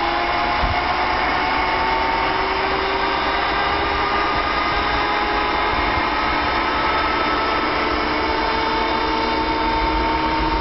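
Jet engine spooling up: a turbine whine of several tones rising slowly in pitch over a steady rushing noise, with a low rumble swelling near the end.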